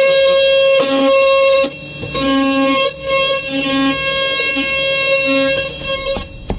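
Milwaukee cordless oscillating multi-tool cutting through drywall: a steady, high-pitched whine, with background music over it. The whine cuts off near the end.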